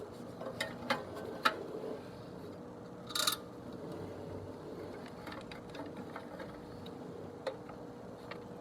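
Small clicks and knocks of hand tools and parts being handled while the wiring of an air-conditioner condensing unit is worked on, with a brief scraping rasp about three seconds in, over a steady faint hum.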